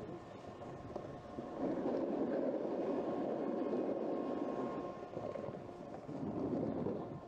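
Snowboard sliding and scraping over packed snow, a rumbling hiss that grows louder about a second and a half in, eases near five seconds, then swells again briefly.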